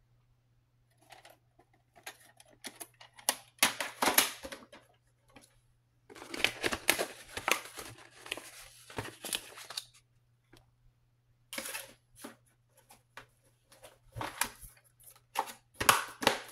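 VHS cassette and plastic clamshell case being handled: irregular clicks, knocks and rustling scrapes of plastic, in clusters about 4 s in and again from about 6 to 9 s and near the end, over a faint steady low hum.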